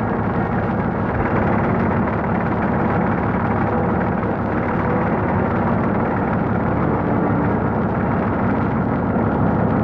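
Crawler tractor's diesel engine running under load while pushing earth: a steady, continuous low rumble.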